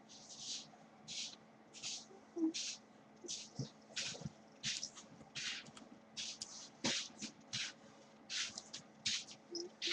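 Drawing strokes scratched on paper, short and rhythmic, about one and a half per second, as a picture of a cat is sketched.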